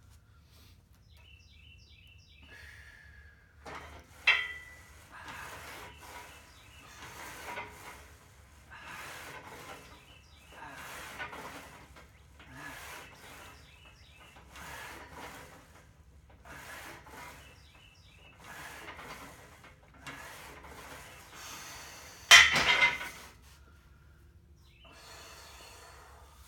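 Smith machine bar with cast-iron plates unhooked from the rack with a metal clank, then a set of presses with a hissing breath about every one and a half seconds, one with each rep. Near the end the bar is hooked back on the rack with a louder clank.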